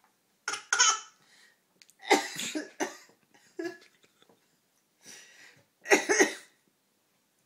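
A woman's tickly coughing and a toddler's imitation coughs, mixed with laughter, in several short bursts with pauses between them.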